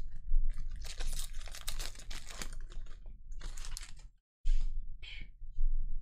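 Foil wrapper of a Panini Mosaic trading-card pack being torn open and crinkled by hand, in a long burst of tearing and crinkling over the first two and a half seconds, then shorter crinkles around three and a half and five seconds in as the cards come out.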